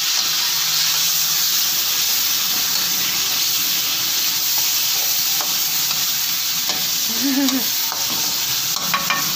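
Chicken strips sizzling steadily in hot oil in a pan while a spatula stirs them, with a few faint clicks of the spatula against the pan in the second half.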